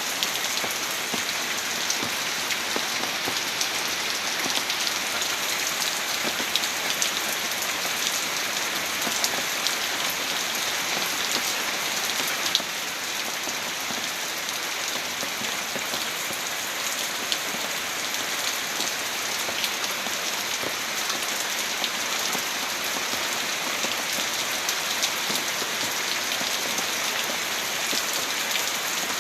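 Heavy rain falling steadily, a dense even hiss dotted with many small sharp drop impacts.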